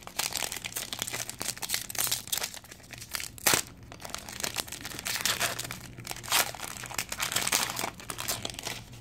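Foil wrapper of a baseball card pack crinkling and tearing as it is pulled open by hand, with one sharp crackle about three and a half seconds in.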